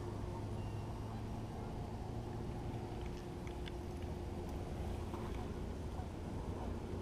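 Steady low hum of a distant engine running, with a couple of faint held tones and no change in pitch.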